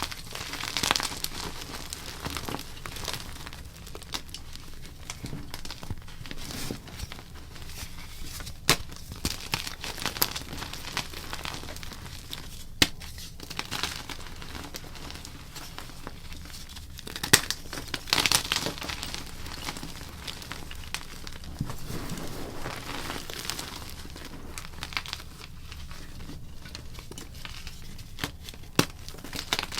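Blocks of gym chalk being crushed, with a running crunch and crumble. Now and then a sharp snap sounds as a piece breaks.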